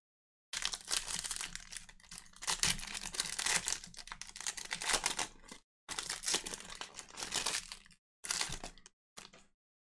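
Trading-card pack wrappers crinkling and tearing open, in several rustling bursts with short breaks between them.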